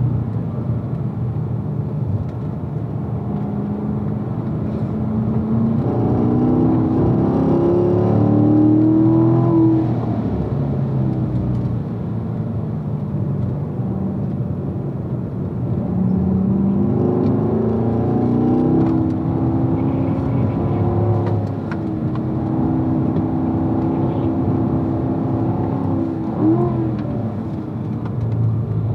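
2016 Corvette's V8 heard from inside the car on a track lap, rising in pitch twice as it accelerates and easing off between. Near the end it gives a quick rev as the car changes down to second gear.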